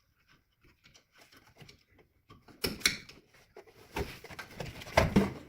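Metal clicks and rattles of a glove box spring being worked and hooked into the glove box door of a 1966 Ford F100, with a few louder knocks in the second half.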